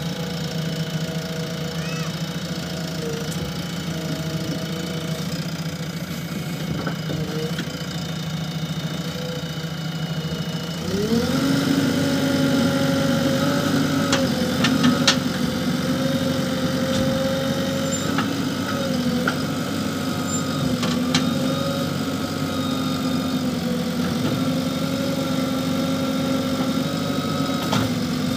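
JCB backhoe loader's diesel engine running at low revs, then revving up partway through and holding at higher revs as the backhoe arm works. A few sharp knocks sound over the engine in the second half.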